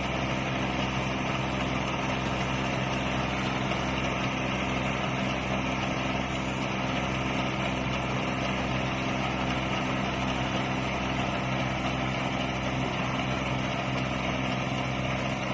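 Engine of a rice-harvesting machine running steadily at constant speed, a continuous even drone.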